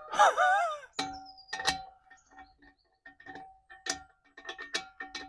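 Ratchet and socket clicking and clinking on the bolts of a steel exhaust clamp: sharp irregular ticks with a faint metallic ring. The 17 mm socket is too big for the 15 mm nut.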